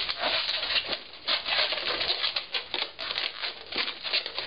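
Long latex twisting balloons rubbing against each other and against the hands as they are twisted and wrapped together, a rapid, irregular scratchy rubbing.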